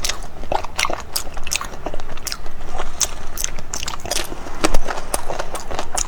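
Close-miked eating sounds: a person biting and chewing something crunchy, with a run of sharp, irregular crunches, several a second.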